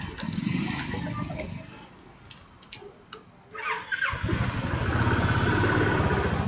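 A motorcycle engine is started on the electric starter with a short whir about three and a half seconds in. It catches about four seconds in and settles into a steady idle. Before that, an engine runs and fades away over the first second or two.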